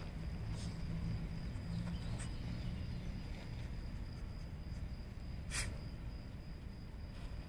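Outdoor ambience: a steady thin high-pitched whine over a low rumble, with a few faint ticks and one brief sharp sound about five and a half seconds in.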